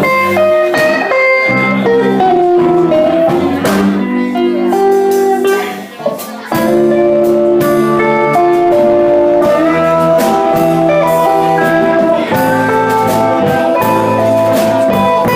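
Live band playing a blues groove: electric guitar and saxophone over an electric keyboard, with long held notes and a brief break about six seconds in.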